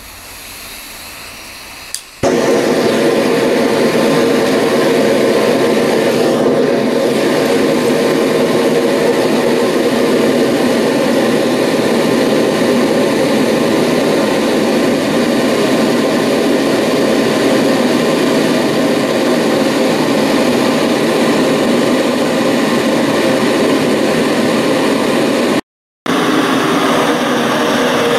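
Propane gas torch firing into a forge: a faint hiss of gas at first, a click about two seconds in as it lights, then the burner running with a loud, steady rushing roar. The sound breaks off for a moment near the end.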